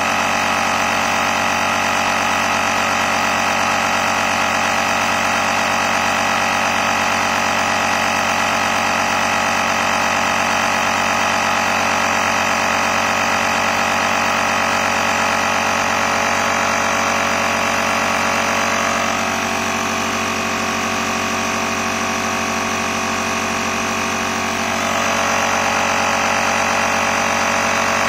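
Portable booster pack's built-in air compressor running steadily as it inflates a car tyre, the pressure creeping up from about 30 to 32 psi. Its note dips slightly and changes for a few seconds past the middle, then returns.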